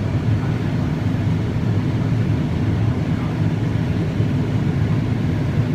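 Combine harvester running steadily, a continuous low engine and machinery drone heard from inside the cab.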